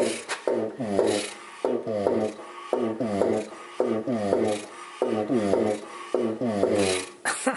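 Twin-cylinder air compressor pump being turned over by hand by its flywheel pulley. It gives a rasping squawk that slides down in pitch, repeating about once a second, six or so times.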